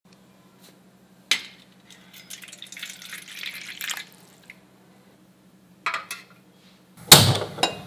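Water poured into a stainless steel bowl over a lump of tamarind for soaking, with light clinks of the bowl before and after, and a louder clatter near the end. A low steady hum runs underneath.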